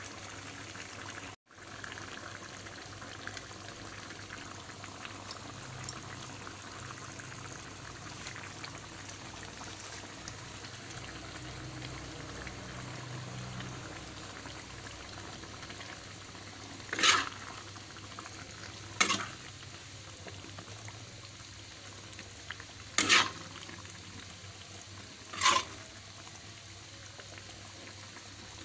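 Thick rendang gravy with beef simmering and sizzling in a metal pot, a steady bubbling hiss. A metal spatula scrapes against the pot four times in the second half, louder than the simmering.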